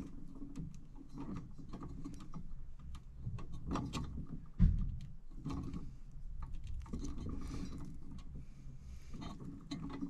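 Small clicks and rattles of pliers and electrical wires being worked at a metal electrical box, with one louder knock about four and a half seconds in.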